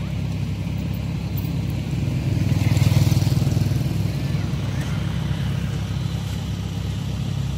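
Steady low engine drone, with a motorbike running close by that grows loudest about three seconds in and then fades back.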